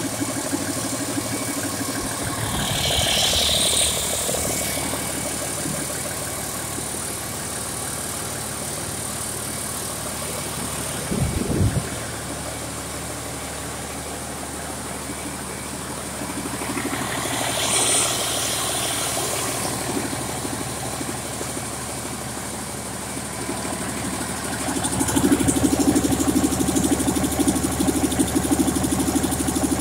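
A 2005 Cummins ISC-285, an 8.3-litre inline-six turbo diesel, running on a test stand at a steady idle. A few seconds before the end it speeds up and runs louder.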